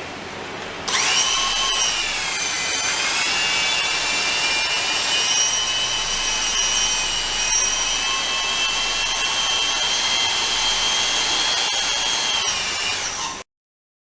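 Keyang D-23 handheld electric mortar mixer's motor whining as it spins up about a second in. Its pitch sags briefly, then holds steady before dropping and cutting off abruptly near the end.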